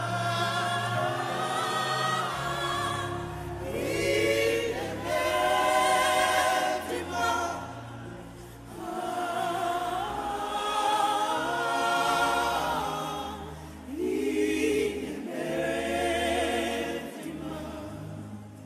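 A gospel choir sings wordless "aah" phrases in harmony over sustained keyboard chords and bass notes. The singing swells and fades in long phrases.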